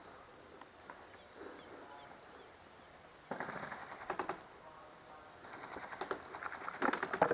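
Airsoft guns firing: a quick run of rapid snapping shots about three seconds in, then more scattered shots toward the end, the loudest just before it ends.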